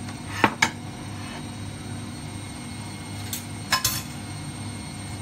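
Ceramic dishes knocking and clinking on a countertop as a bowl is moved and set down among serving plates: two sharp knocks near the start and a few more about three and a half seconds in, over a steady low hum.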